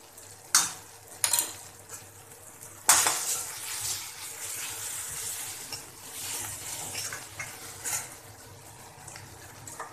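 A steel spoon stirring and scraping a sizzling onion-tomato tadka in a metal kadhai, just after chilli powder has gone in. Two sharp clinks come in the first second and a half, and the loudest scraping and frying starts about three seconds in.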